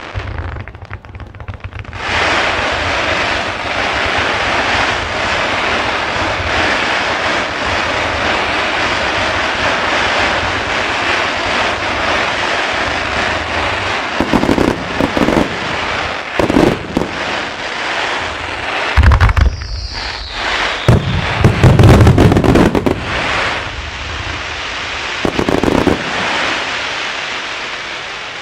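Fireworks starmine: a dense, continuous crackling of bursting stars, then from about halfway heavy booms of shell bursts in quick clusters, the loudest in the last third.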